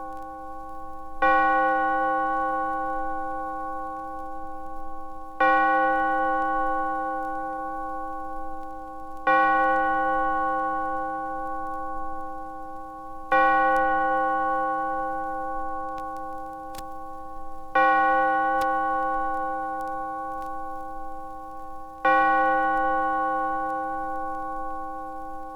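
A single bell tolling slowly at the same pitch, six strokes about four seconds apart, each ringing on and fading until the next.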